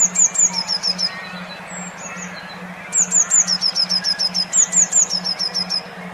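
Recorded songbird song: rapid series of high, sharp chirps, about six or seven a second, in two bouts with fainter calls between. Under it runs a low hum that pulses about three times a second.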